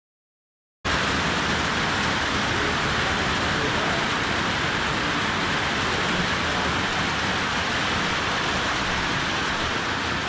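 Steady rain falling, starting abruptly about a second in.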